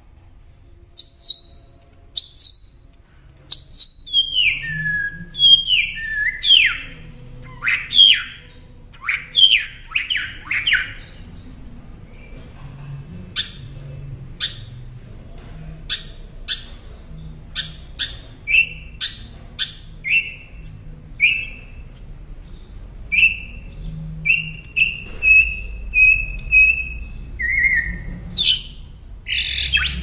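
Northern mockingbird singing, working through a string of different phrases and repeating each several times. First come falling whistled slurs, then sharp short chips, then a run of brief notes held at one pitch.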